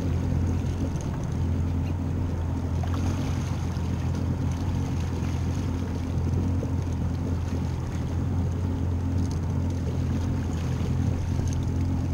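Engine of a Yamaha 190 FSH jet boat running steadily with a constant low hum, under a wash of water and wind noise.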